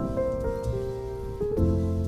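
Background music: calm instrumental melody with held notes changing every half second or so.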